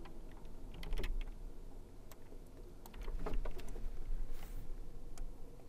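Faint scattered clicks and light taps of computer input as text is handwritten into a drawing program, over a low steady hum.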